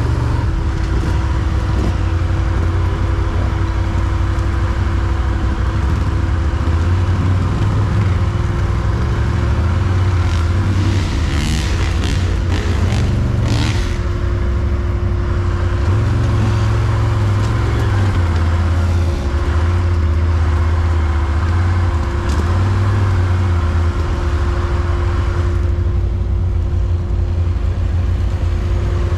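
Quad bike engine running steadily under way, its low drone swelling and easing with the throttle. There is a cluster of brief scraping and clattering noises about halfway through.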